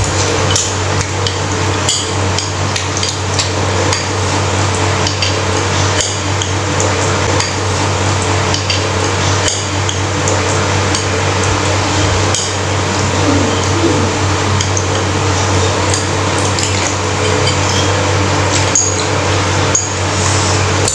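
Metal spoons and forks clinking and scraping against a ceramic bowl of noodle soup during eating: many short, light clicks over a steady low hum and hiss.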